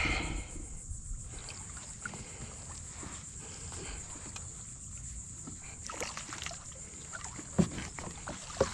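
Water sloshing and splashing as a hooked flounder is brought to a landing net beside a kayak, with scattered small clicks and two sharp knocks near the end.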